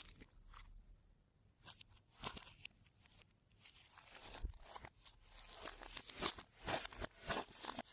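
Hands kneading and stretching fluffy slime: irregular sticky crackles and pops, sparse at first and coming more densely from about four seconds in.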